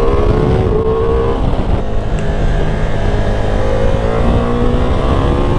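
Ducati Multistrada V4 Pikes Peak's V4 engine pulling hard under acceleration, its pitch climbing steadily. About a second and a half in the pitch drops as it shifts up, then it climbs again, all over heavy wind rush at road speed.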